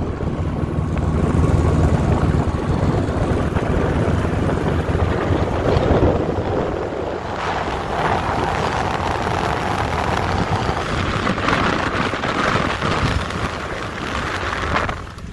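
Wind rushing over a microphone held outside a moving ZAZ-965 car, mixed with its road and running noise.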